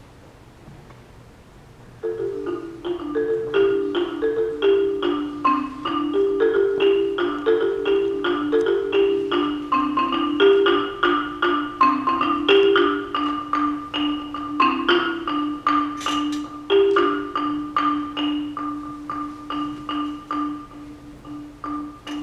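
Solo marimba played with four mallets. After a pause of about two seconds, a steady stream of quick notes begins, moving figures above a repeated low note, and the playing grows softer toward the end.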